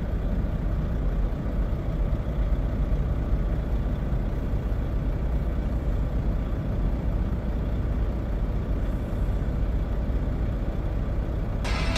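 A steady low rumble with a faint hiss, without a break. Music starts near the end.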